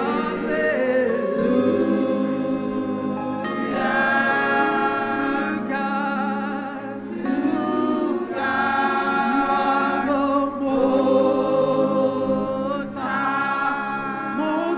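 Gospel choir singing a worship song, with steady low sustained notes underneath.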